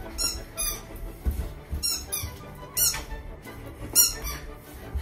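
A dog's squeaky toy giving a series of short, high squeaks as a Jack Russell terrier plays with it, with low thuds of feet running and stepping on the tatami floor.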